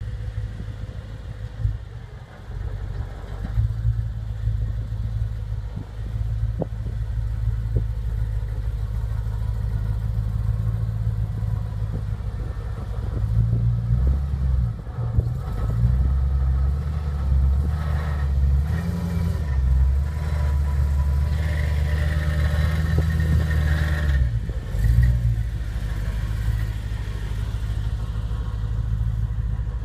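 BMW E92 M3's V8 engine running with an exhaust leak. It runs at a steady idle, then the revs are raised in the middle for about ten seconds before settling back to idle.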